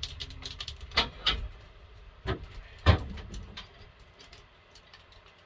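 Things being banged around by hand: a handful of sharp knocks and clunks, the loudest about three seconds in, over a low rumble that fades out.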